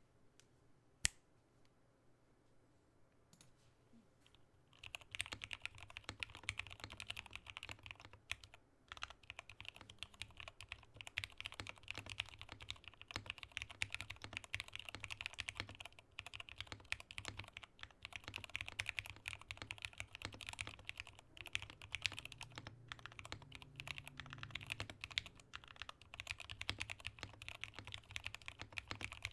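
Typing on a Rama M60a mechanical keyboard with lubed Tealios V2 linear switches and GMK keycaps: a single sharp click about a second in, then fast continuous keystrokes from about five seconds in.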